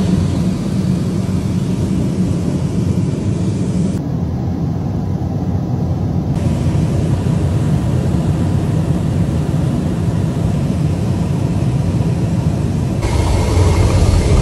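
Loud, steady roar of rushing air and engine noise inside the cabin of a Boeing 737 MAX 9 in flight, with a door plug blown out of the fuselage wall. Its tone shifts about four seconds in and again near the end.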